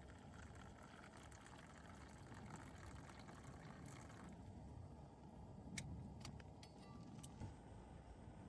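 Near silence: a faint low background rumble, with a few light clicks a little past the middle.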